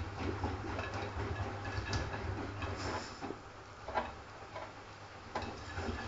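Front-loading washing machine running with a low steady hum as its drum turns the laundry, with irregular clicks and knocks throughout, the sharpest about four seconds in.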